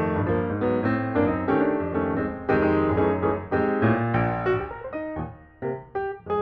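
Background piano music: a gentle run of struck notes over chords, easing briefly about five seconds in before picking up again.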